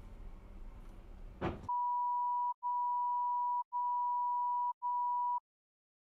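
Faint car cabin road noise with a click, then a steady electronic beep tone sounding in four long beeps of about a second each, separated by very short breaks, cutting off abruptly.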